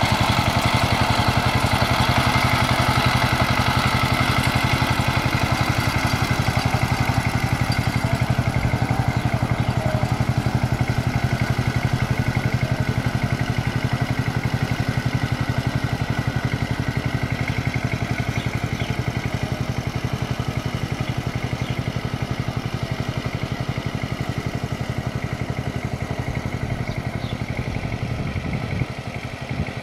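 Kamco power tiller's 12 hp single-cylinder diesel engine running steadily with a regular chug as the tiller puddles a wet paddy field, growing gradually fainter as the machine moves away.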